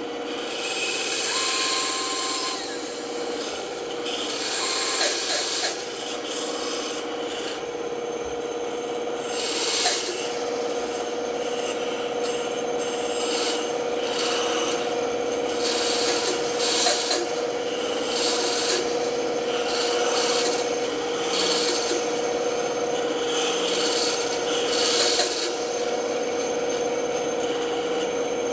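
Band saw running with a steady hum while its blade cuts through wood in repeated spurts of a few seconds each.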